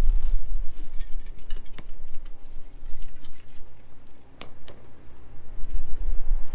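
Wood fire crackling in a folding stainless-steel hobo stove: sharp, irregular pops and snaps over a low, uneven rumble.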